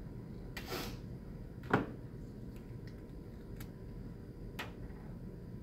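Light clicks and taps of a small plastic reagent vial and a micropipette being handled, with a brief rustle about half a second in and one sharper click just under two seconds in.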